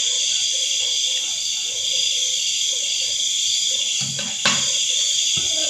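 Crickets and other insects trilling in a steady high-pitched chorus, with one sharp click about four and a half seconds in.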